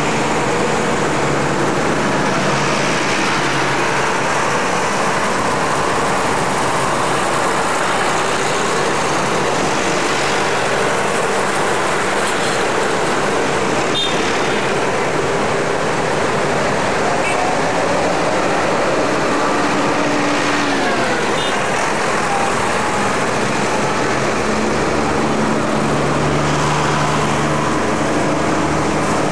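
Tractors and cars driving past at close range in a steady stream of engine and road noise. Low engine tones shift as each vehicle goes by.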